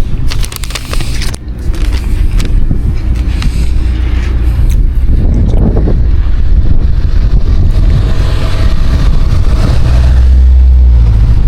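A loud, low, unsteady outdoor rumble, with a few sharp clicks in the first second or so.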